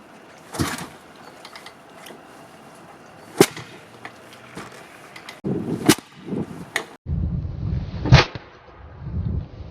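1988 Kawasaki KX500 single-cylinder two-stroke being kick-started cold: sharp clunks of the kickstarter, and from about halfway, short low bursts as the engine turns over and coughs without catching.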